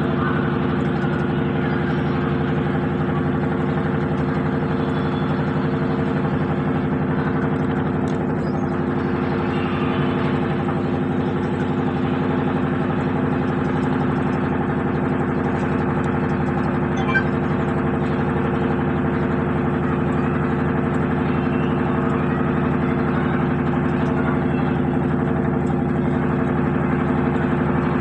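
Samsung inverter washing machine running steadily, its motor and drum giving an even, unchanging hum with a few faint ticks.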